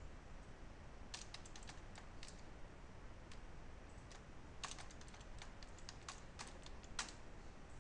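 Computer keyboard typing, the password being keyed in at a login prompt. There is a short run of keystrokes about a second in and a longer run from about four and a half seconds, ending on one sharper keystroke near the end.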